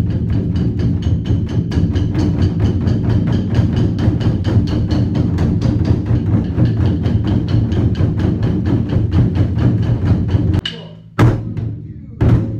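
A group of taiko drums struck with wooden sticks in a fast, continuous roll with a heavy low rumble. The roll cuts off sharply about ten and a half seconds in, and a few single loud strikes follow.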